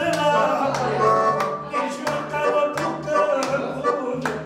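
Roland electronic accordion playing a lively folk tune, held chords over a stepping bass line, with hands clapping along to the beat about twice a second.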